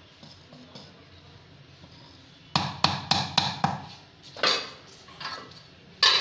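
Metal ladle knocking on the rim of a metal cooking pot: a quick run of about five taps around three seconds in, a short scrape, then more taps right at the end.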